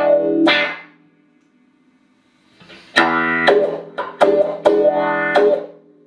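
Clean electric guitar chords on a Fender Stratocaster, played through a Boss AW-3 Dynamic Wah and a Boss CE-5 Chorus Ensemble into Roland JC-120 amps. A chord rings and fades near the start. After a pause of about two seconds, five chord strikes follow and fade out near the end.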